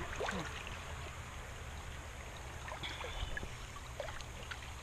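Creek water trickling and lapping, with small faint splashes as a person wades through it waist-deep.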